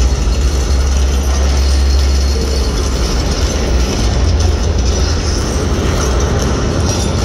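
A loud, steady deep rumble played over an arena's sound system as a show sound effect, with a wash of noise over it.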